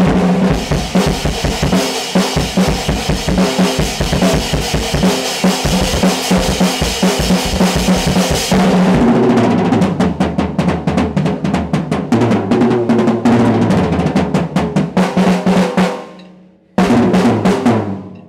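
Drum kit played solo: fast, dense drumming over a cymbal wash for the first half, then tom fills, stopping about 16 seconds in, followed by one final hit that rings out and fades.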